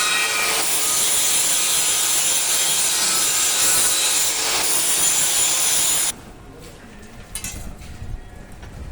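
Angle grinder working on steel: a loud, steady hiss with a faint whine that cuts off suddenly about six seconds in, leaving only faint clinks and handling noise.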